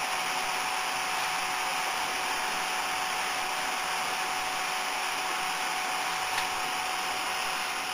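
Steady hiss of machinery running, even in level, with a few faint constant high tones over it.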